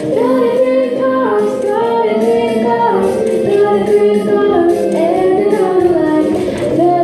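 Children singing a song with a musical accompaniment, the melody moving through long held notes.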